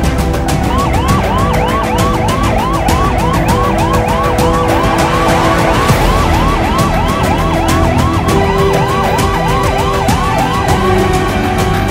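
Ambulance siren in a fast yelp, its pitch sweeping up and down about three times a second, starting just under a second in and cutting off near the end, over background music with a steady beat.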